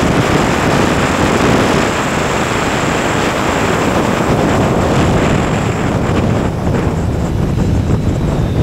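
Wind rushing over the microphone of a Kawasaki Ninja 1000SX ridden at highway speed, about 150 km/h, with the motorcycle's engine and road noise underneath. The rush eases a little from about six seconds in as the bike slows.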